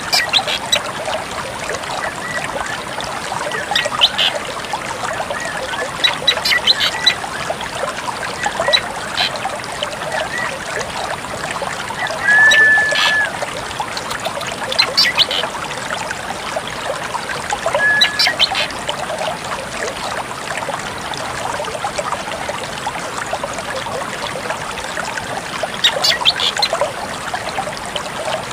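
Drongo calls: scattered short, varied notes with two brief held whistles, over a steady trickling background noise.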